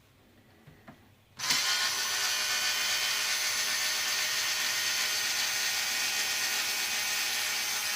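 Power screwdriver running steadily with an even motor whine. It starts about a second and a half in and runs without a break.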